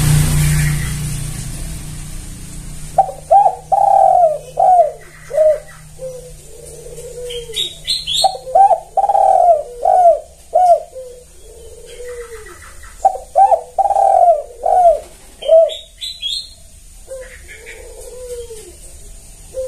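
Spotted dove (tekukur) singing its cooing song: a run of short quick coos ending in longer drawn-out notes, repeated about every five seconds. A passing vehicle fades out in the first couple of seconds, and brief high chirps from another bird come between the phrases.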